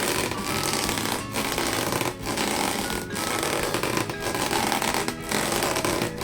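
Rubber balloons being squeezed and rubbed, a dense crackling squeak in strokes broken by short pauses about once a second.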